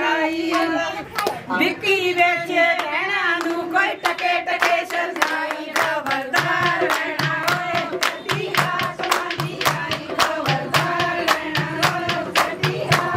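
Singing with steady rhythmic hand clapping; the claps grow denser and more even from about four seconds in.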